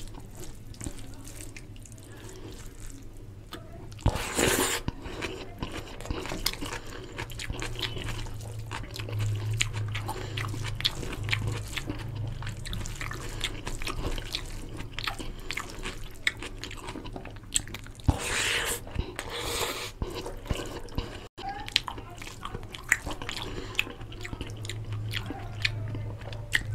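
Close-up eating by hand: fingers squishing and mixing rice into oily chicken curry gravy, with wet chewing and mouth clicks. There are two louder stretches, about four seconds in and about eighteen seconds in.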